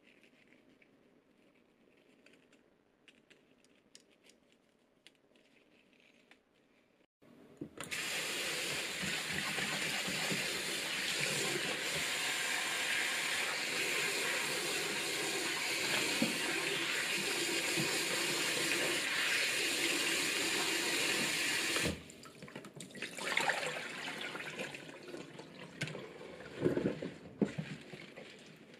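Kitchen tap turned on about seven seconds in, water running steadily onto leafy greens in a plastic bowl in a stainless-steel sink, and shut off suddenly about 22 seconds in. Then irregular splashing and sloshing as the greens are swished in the bowl of water; before the tap opens there are only faint clicks.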